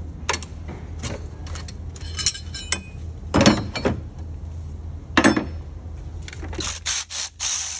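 Metal hand tools clinking and clanking: scattered sharp clinks, two louder clanks about three and a half and five seconds in, and a quick run of clicks near the end, over a steady low hum.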